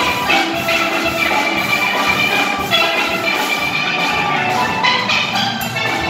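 Steel band playing live: an ensemble of steelpans, from high tenor pans to large bass pans, playing a rhythmic tune over a drum kit keeping the beat.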